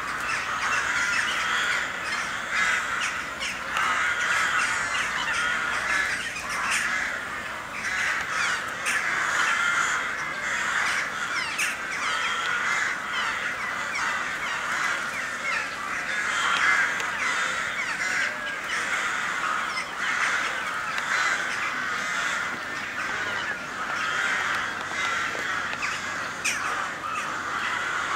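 A flock of crows cawing continuously, many calls overlapping into a dense chorus.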